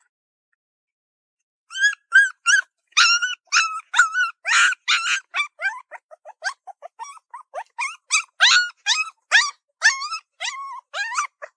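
A puppy whining and yipping in a quick run of short, high-pitched cries, about four a second, starting about two seconds in.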